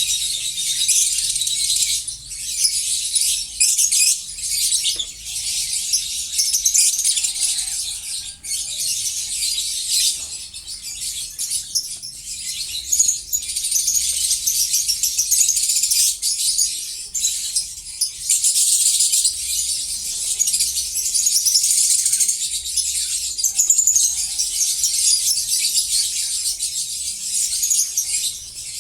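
Many lovebirds chattering and screeching at once: a dense, unbroken high-pitched twittering.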